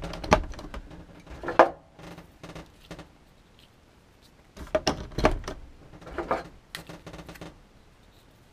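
Power cable plugs being pushed into the outlets of a sauna heater control box, with the box and cables handled: two bouts of clicks, knocks and rustling with a quiet gap between them.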